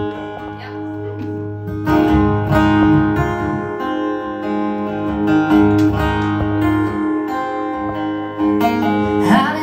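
Acoustic guitar playing a song intro, strummed chords ringing out.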